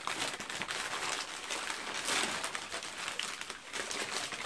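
Tissue paper crinkling and rustling as it is pulled open and unwrapped by hand: a dense run of quick crackles, loudest about two seconds in.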